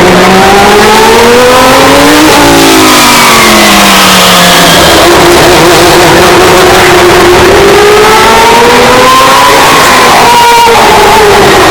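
Historic Formula One race car engine running at high revs as the car passes, the pitch climbing for about two seconds, then dropping sharply and falling away as it goes by. The engine note rises again later and falls near the end, with a brief crack just before. Very loud, boosted to near clipping.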